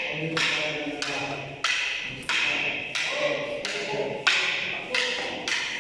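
Rattan arnis sticks striking in a steady drill rhythm, a sharp wooden clack about every two-thirds of a second, each with a short ring.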